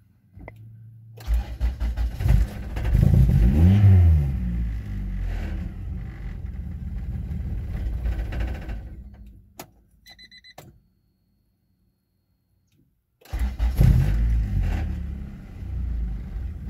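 Honda Accord CB7 engine cranking and catching, revving up and back down once, then running for several seconds before being shut off. A few short clicks and beeps follow, and after a few seconds' silence it is cranked and started again. This is the first start after a fuel pump replacement.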